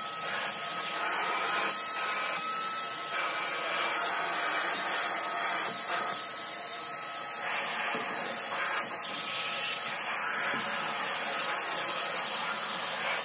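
Black+Decker 10-litre wet and dry vacuum cleaner running steadily, its extension wand sucking cobwebs from a ceiling cornice: a rush of air with a thin steady whine.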